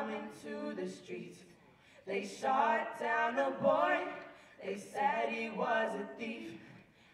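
Several voices singing a cappella at the microphones, in three short held phrases with brief pauses between them.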